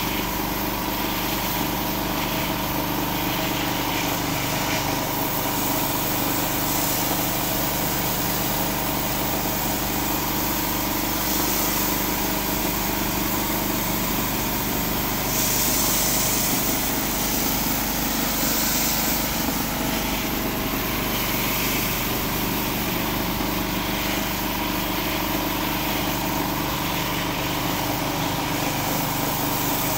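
Pressure washer engine running steadily, with the hiss of high-pressure water jets spinning under a Whisper Wash rotary surface cleaner as it scrubs a concrete driveway. The hiss brightens briefly about halfway through.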